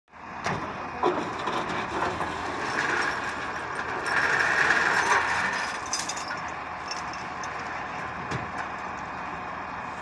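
Heavy diesel vehicle engines running steadily: the truck-mounted crane holding a suspended load while the low-loader trailer pulls out from under it, louder for a few seconds in the middle. A few sharp metallic clanks come through, about a second in and again near the end.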